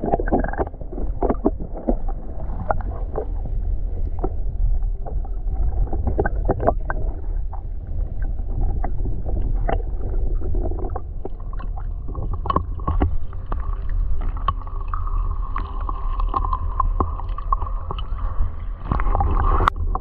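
Muffled handling noise from a covered microphone: a steady low rumble with frequent irregular knocks and rubbing.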